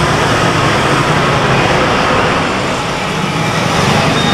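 Steady roadside traffic noise from passing motorbikes and cars, with a low engine hum underneath.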